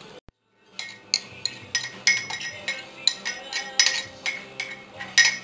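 Metal spoon clinking and scraping against a bowl and baking tray as a chopped topping is spooned onto fish, a dozen or so sharp clinks starting about a second in.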